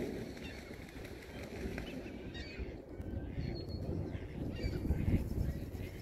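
A flock of gulls calling, several short squawking calls coming one after another, over a steady low rumble.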